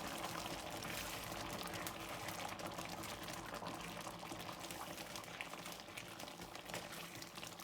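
Navratan korma sauce with fresh cream boiling in a pan: a steady bubbling with many small pops.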